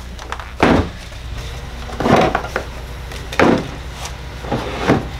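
Milwaukee Packout plastic tool boxes being unlatched, lifted off a stack and set down on a wooden workbench: a series of sharp plastic clunks and clicks, about six in all.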